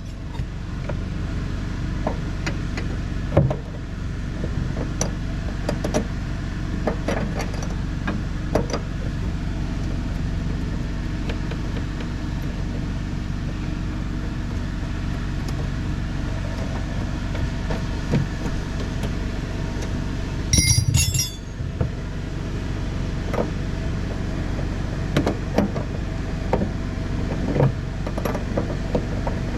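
Tools and metal parts clinking and knocking while working under a car, over a steady low mechanical hum, with a louder metallic clatter a little past two-thirds of the way through.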